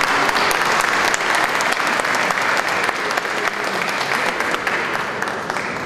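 Audience applauding, a dense patter of many hands clapping that thins out a little toward the end.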